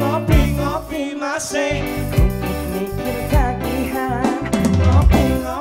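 A man singing a pop song into a microphone, backed by a live band with bass guitar.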